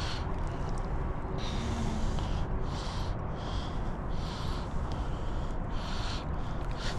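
A man breathing hard and fast, a breath about every second, over a steady low rumble: the exertion of fighting a big striped bass on rod and reel.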